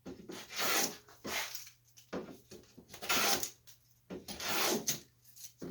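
Abrasive rubbing strokes against wood, about six of them roughly a second apart, each a rasping scrape.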